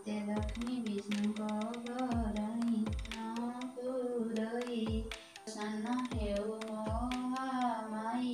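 A woman's voice singing a devotional melody to a drum accompaniment, the drum's deep strokes sliding down in pitch about once a second, with light clicking percussion above.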